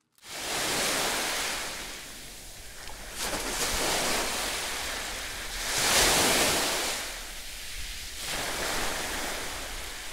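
Sea surf washing onto a beach, swelling and ebbing every two to three seconds, with water splashing as a swimmer comes in and wades out through the shallows.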